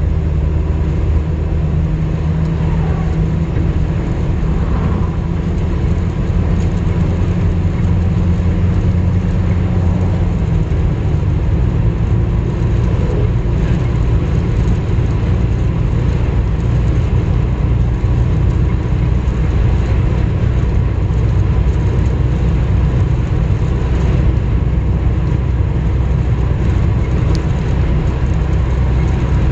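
Steady engine and road noise of a Nissan cruising on a highway, heard from inside the cab. The low hum shifts slightly about ten seconds in.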